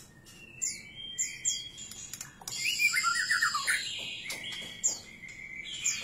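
White-rumped shama singing a varied song of sharp chirps, high whistled sweeps and a rapid warbled run of notes around the middle.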